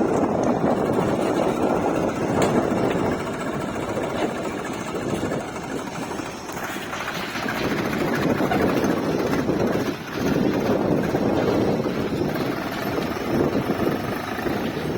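Diesel engine of heavy machinery running steadily, its level swelling and dipping, with wind noise on the microphone.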